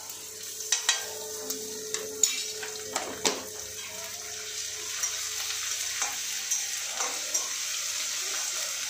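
Onion with ginger and green chilli paste sizzling in hot oil in a metal kadai, with a metal spoon scraping and clinking against the pan as it is stirred. The clinks are sharpest and most frequent in the first few seconds, then lighter.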